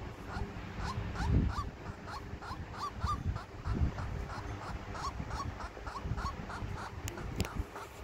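Young zebra dove giving a quick run of short, thin whining calls, about three a second, a begging call for attention. Two low thumps stand out, about a second in and near the middle.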